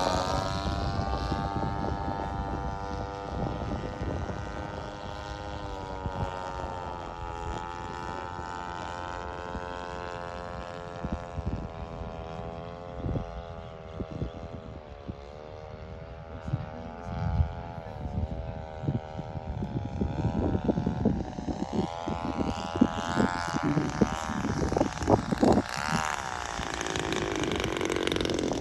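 Propeller engine of a large radio-controlled scale warbird flying overhead: a steady drone whose pitch wavers up and down as it passes and changes throttle. Towards the end it throttles back as the model comes in to land, with irregular low thumps.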